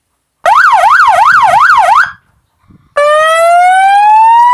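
Loud electronic police-style siren being switched through its modes: from about half a second in, a fast up-and-down yelp of roughly three or four sweeps a second lasting about a second and a half, then after a short pause a long wail whose pitch rises steadily from about three seconds in.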